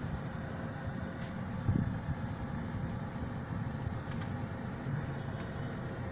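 A car's engine running, heard from inside the car as a steady low rumble, with a few faint ticks.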